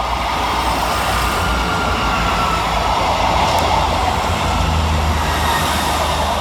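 A train running through the station: a steady loud rumble with a low drone that grows stronger in the second half.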